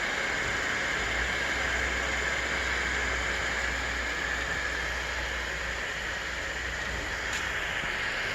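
Desktop FDM 3D printer running mid-print, near the end of the job: a steady hiss from its fans with a constant low hum beneath, and one faint click about seven seconds in.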